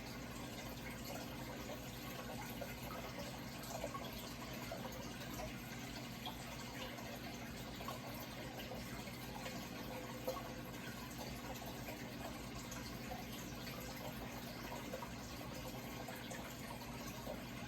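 Steady running water trickling and splashing, with small drips scattered through it, over a faint steady low hum.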